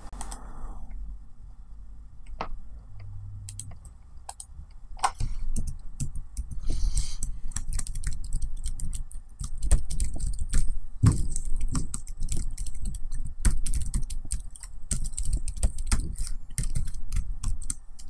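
Laptop keyboard being typed on: a few separate key presses at first, then fast, continuous typing from about five seconds in.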